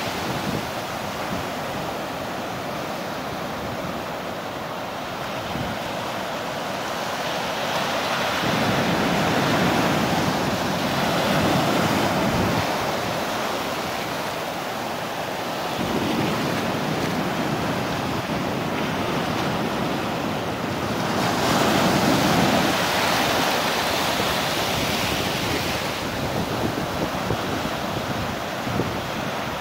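Ocean surf breaking and foam washing over the shore, a continuous rush that swells louder in several surges as waves come in.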